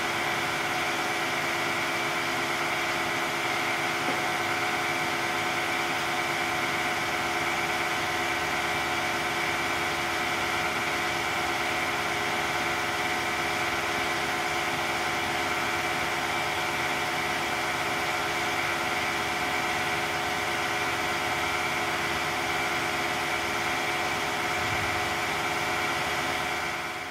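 Laboratory densification press machinery running with a steady hum, several held tones over an even hiss, while the press slowly unloads at the end of a pressing cycle.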